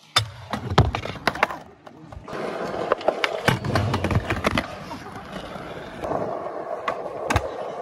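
Skateboard wheels rolling over concrete and asphalt, with a series of sharp clacks from the board popping and landing.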